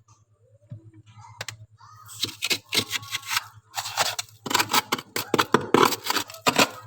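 A dense run of sharp snipping and scraping clicks from hand work, starting about two seconds in, over a low steady hum.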